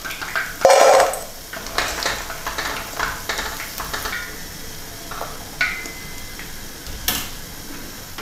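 Hot oil sizzling under deep-fried pita cubes as a wire skimmer scoops them out and tips them into a stainless steel bowl, with metal knocks and clatters throughout and a loud clatter about a second in. A short metallic ring sounds a little past halfway.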